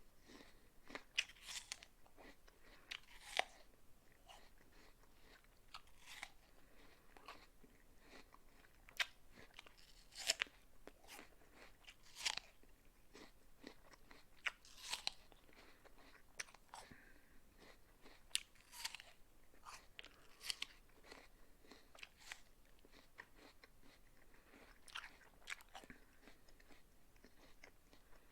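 A person biting into and chewing a crisp raw apple, with sharp crunches every second or two over quieter chewing.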